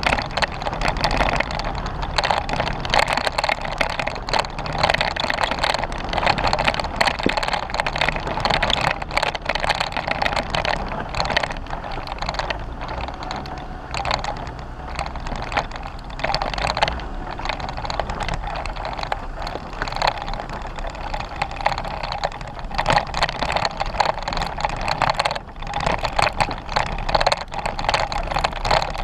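Jeep Wrangler driving over a rough dirt trail: a steady vehicle noise with frequent knocks and rattles throughout.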